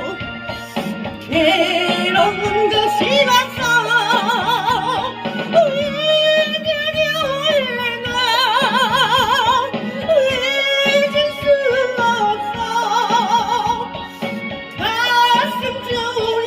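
A voice singing a slow melody over sustained keyboard-like accompaniment, holding long notes with wide vibrato and sliding between pitches, as in pitch and key-matching practice.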